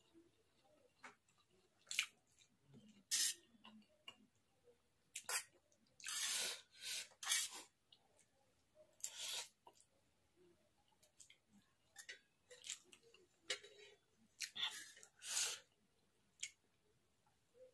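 Close-miked eating of veg chow mein noodles: slurps and chewing sounds at irregular intervals, the longest slurps lasting about a second, with short clicks between them.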